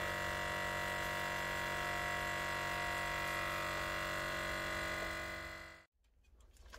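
Countertop vacuum sealer's pump motor running with a steady hum while it draws the air out of the bag and seals it. It dies away and stops near the end.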